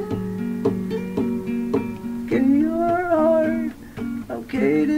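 Acoustic guitar song: plucked and strummed chords, with a voice holding a wavering sung note in the middle and coming in again near the end.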